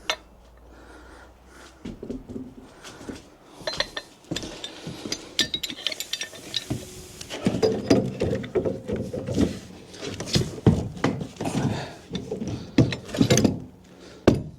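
Irregular knocks, clinks and rattles of something being taken apart by hand, busiest in the second half.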